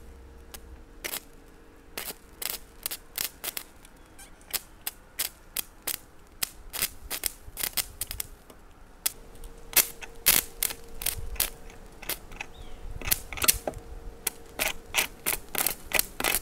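Stick-welding arc from a rod powered by two 12-volt car batteries in series (24 volts), crackling against a metal pipe as a rapid, irregular run of sharp snaps and pops. The snaps come sparsely at first and thicken from about halfway through.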